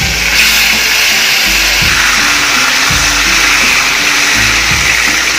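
Beef liver frying in hot oil in a frying pan, a steady loud sizzle that grows stronger about half a second in as the wet, tamarind-coated pieces go into the oil. Background music plays underneath.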